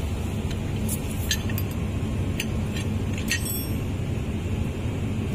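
Several light metallic clinks in the first few seconds as small parts of a hydraulic rotary motor (washers, seal ring, tools) are handled on the bench, over a steady low hum.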